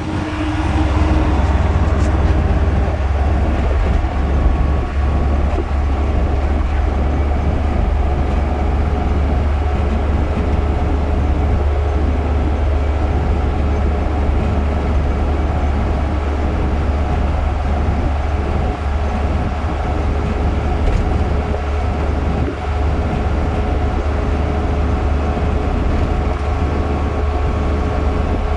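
Steady low rumble of engine and road noise inside the cabin of a moving vehicle.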